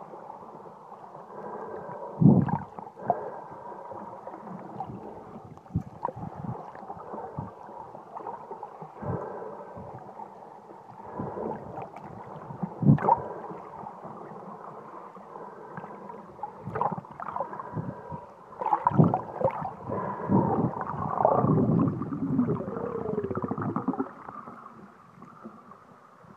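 Muffled underwater sound picked up by a phone in a sealed waterproof case: water sloshing and gurgling against the case, with scattered sharp knocks. The sound grows louder and busier with gurgling near the end.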